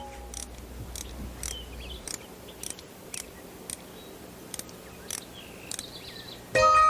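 Scattered short chirps and clicks with a few brief gliding bird-like calls, then music with bright bell-like mallet notes comes in loudly near the end.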